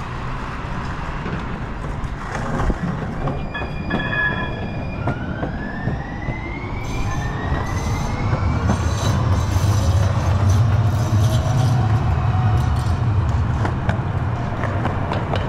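A train going by: a few steady high tones about four seconds in, then rising whines as it speeds up, then a loud low rumble through most of the rest.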